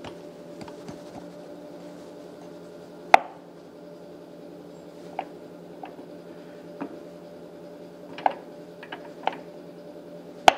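Sharp metal clicks and clinks of gears being handled and slid onto a shaft in a DoAll milling machine's open gearbox, a handful of separate knocks with the loudest about three seconds in and another near the end. A steady low hum runs underneath.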